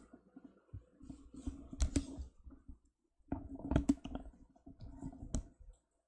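Handling noise close to the microphone: irregular clicks, knocks and rubbing, in two spells with a short pause about halfway through.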